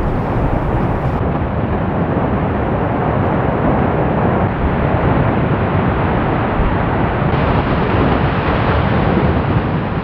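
Fagradalsfjall fissure eruption heard up close: lava fountaining and spattering and molten lava churning down its channel. It makes a loud, steady, dense rushing noise, with small abrupt shifts in its tone about a second in and again past seven seconds where shots are spliced.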